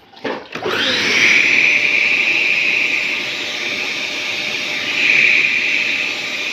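Vacuum cleaner switched on about half a second in, speeding up to full power within a second and then running steadily. At full power its hose no longer whistles, now that self-adhesive carpet lining has been glued inside.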